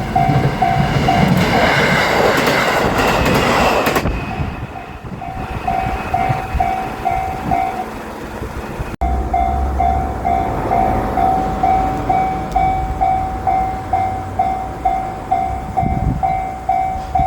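Japanese level-crossing warning bell ringing as a steady repeating electronic ding. For the first few seconds it is drowned by a JR Shikoku 7200 series electric train passing close by with loud rushing wheel and motor noise.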